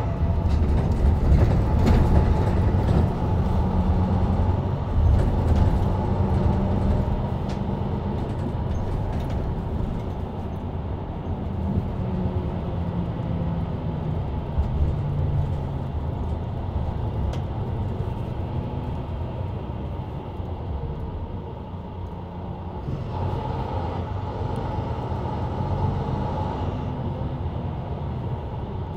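Interior sound of a Mercedes-Benz Citaro C2 LE city bus heard from the rear seats: the diesel engine pulling with its low hum shifting in pitch, over road and tyre noise. Louder for the first ten seconds or so, then easing off. A brighter hiss rises briefly about three-quarters of the way through.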